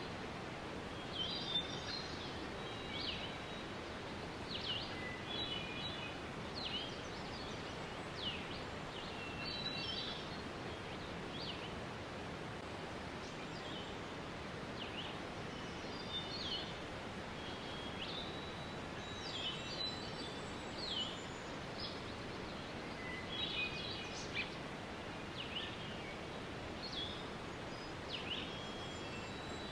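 Steady rush of a waterfall with small birds chirping over it: many short, high calls and a few quick trills, coming and going, with a lull about a third of the way through.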